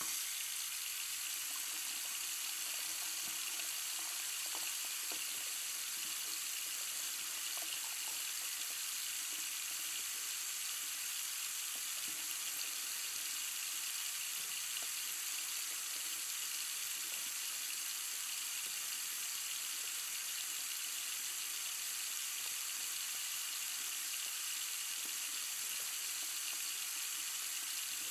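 Water running steadily from a tap into a sink, an even rushing noise that starts abruptly and holds without change.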